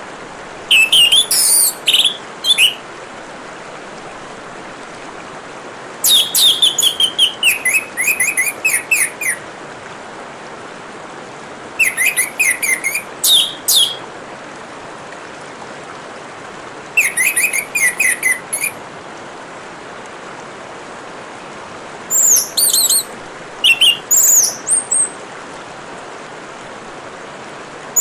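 Orange-headed thrush singing in five bursts of rapid, falling phrases a few seconds apart, over a steady trickle of water.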